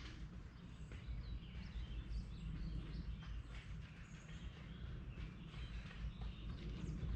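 Small birds chirping in short calls over a steady low outdoor rumble, with a few light knocks.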